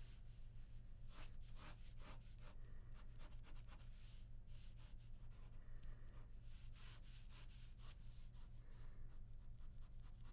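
Ballpoint pen sketching on paper: faint scratchy strokes in quick, irregular runs. A low steady hum sits underneath.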